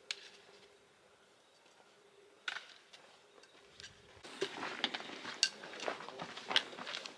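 Hiking footsteps crunching on a dirt and gravel trail, with the metal tips of trekking poles clicking against rock, starting about four seconds in. Before that, only a couple of isolated clicks over quiet.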